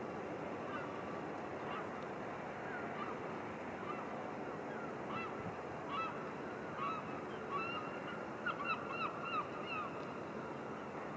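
Birds calling in a series of short, honking calls that come faster and louder toward the end, over a steady outdoor rush of background noise.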